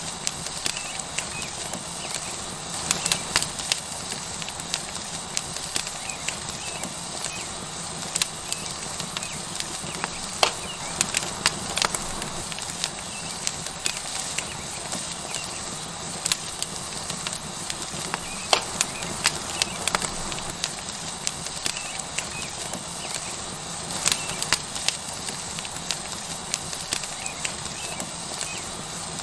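Wood fire crackling with frequent sharp, irregular pops over a steady sizzle of a tomahawk steak searing on a hot rock.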